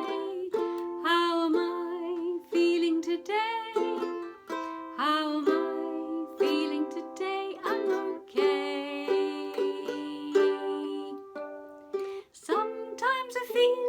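A woman singing a simple children's song about feelings, accompanied by a strummed stringed instrument playing steady chords.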